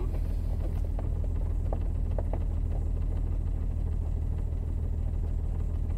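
Car engine idling steadily with a low, even rumble, still cold, its temperature gauge not yet moving.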